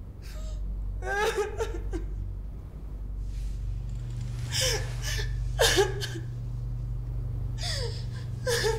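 A woman sobbing and weeping in three short bouts of gasping, broken cries.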